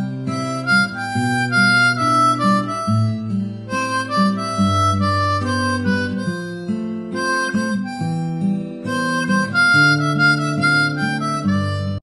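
Background music: a lead melody of held notes over a moving bass line.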